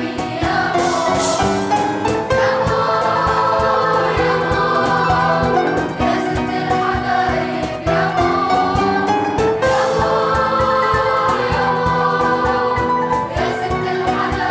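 Choir singing a medley of film songs, accompanied by grand piano, qanun and a cajón tapping out a steady beat.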